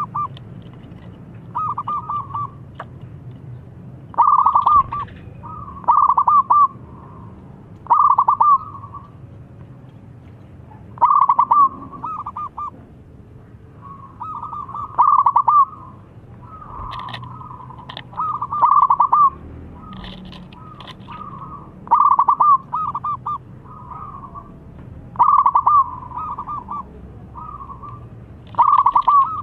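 Zebra dove cooing in full song: short, rapidly pulsed coo phrases repeated about every two seconds, some loud and some fainter.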